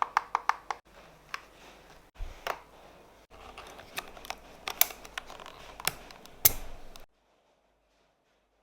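Keychron V2 mechanical keyboard being typed on: a quick run of keystrokes, then slower, uneven key presses with a few louder ones, stopping about seven seconds in.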